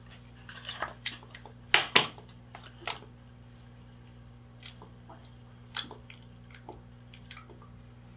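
Wet lip smacks and mouth clicks as lips are pressed together over freshly applied lip butter: a quick run of smacks in the first three seconds, the two loudest about two seconds in, then a few scattered single ones. A faint steady hum lies underneath.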